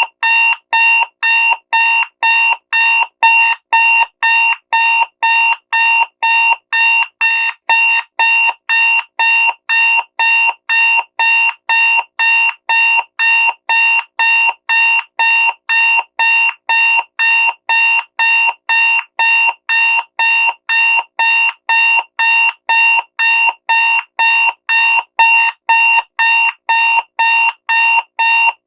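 Loud digital alarm clock beeping: short, evenly spaced beeps of a single pitched tone, about two a second, repeating without change.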